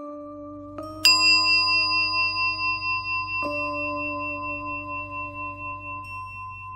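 Ambient background music: soft sustained notes and a bright bell-like chime struck about a second in, ringing on and slowly fading, with another low note entering partway through.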